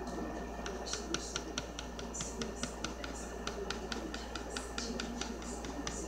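Ballpoint pen hatching on paper: a quick run of light ticks, about four or five a second, starting about a second in, with faint scratching between them as short strokes are laid down.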